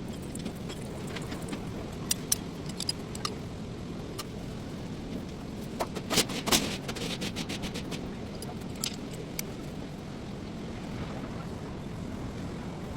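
Hyundai Sonata engine running steadily, with scattered sharp metallic clicks and clinks, a cluster of them about halfway through.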